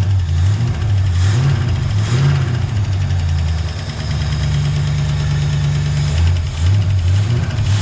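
1965 Ford Mustang engine running at idle with a rattling knock from inside, which the owner takes for a rod knock in a blown engine; the oil is thickened with Lucas oil stabilizer.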